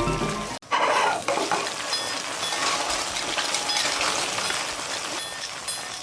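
Food sizzling in a hot pan while being stirred, with light clinks of a utensil against the pan. It starts abruptly about half a second in, after a moment of music.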